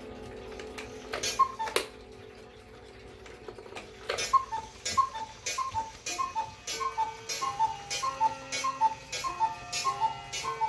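Carved wooden cuckoo clock calling: one two-note cuckoo about a second in, then a quick run of cuckoos, each a higher note falling to a lower one with a click from the mechanism, after its hands have been turned by hand to the hour.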